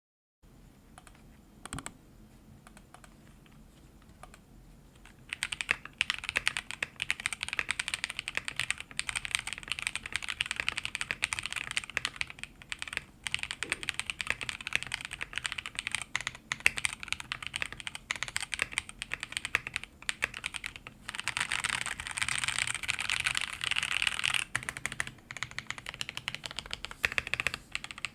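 Stock Zaku linear switches (63.5 g two-stage spring, extended stem, polycarbonate top, nylon bottom) typed on in a plateless BM60 with a clear acrylic tray-mount case and PBT OEM keycaps: one lone keystroke about two seconds in, then continuous fast typing from about five seconds on. The keystrokes have a clack more than a thock, with a snappy top-out.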